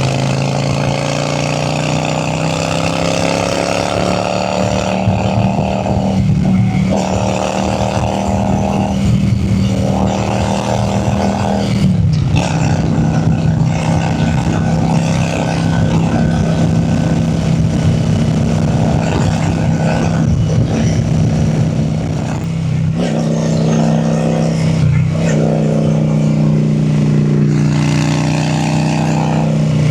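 Honda Shadow V-twin cruiser motorcycle engine under way, pulling up through the gears. The engine note climbs, then drops briefly at each shift, several times over.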